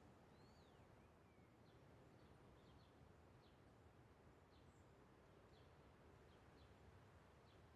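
Near silence: faint outdoor ambience with a low steady rumble and scattered faint bird chirps, one a falling call shortly after the start.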